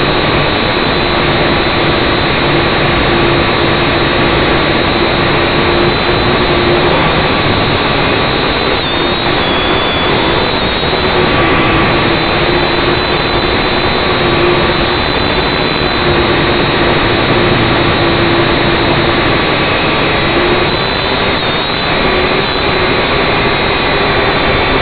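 Syma X5C quadcopter's small brushed motors and propellers buzzing steadily, heard close up through the drone's onboard camera, with a whine whose pitch drifts a little as the motor speeds change.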